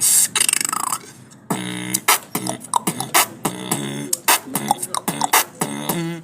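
A boy beatboxing: a fast fluttering buzz for about the first second, then from about a second and a half in a steady beat of sharp mouth clicks with a hummed tone underneath.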